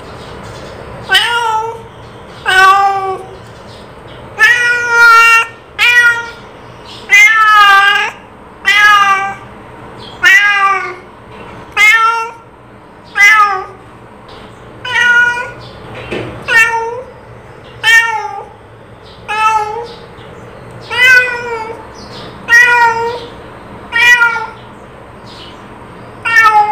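A cat meowing over and over, about twenty separate meows, roughly one every one to two seconds and sometimes two in quick succession, each with a bending, rising-and-falling pitch.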